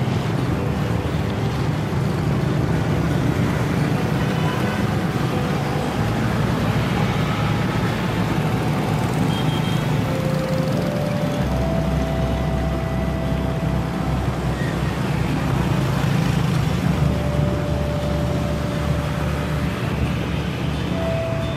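Steady road traffic noise on a busy city street: vehicle engines and tyre and road noise running continuously, with a few brief held tones over it.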